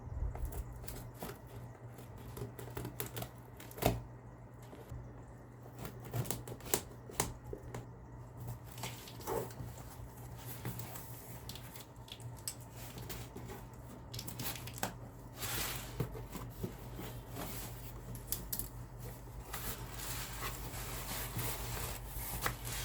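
Packaging being handled and opened for unboxing: irregular clicks, taps and rustling of the box and wrapping, with tearing and crinkling, over a steady low hum.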